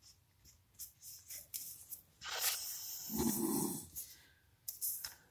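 Light rustling of paper and small taps as cut paper pieces are moved and handled on a craft mat, with a breathy intake and a short low hum from the crafter a little past the middle.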